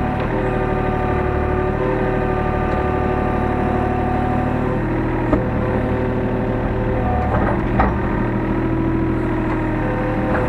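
Hyundai R35Z-9A mini excavator's diesel engine running steadily, heard from inside the cab, its tone shifting a few times as it works. Two short knocks sound about five and eight seconds in.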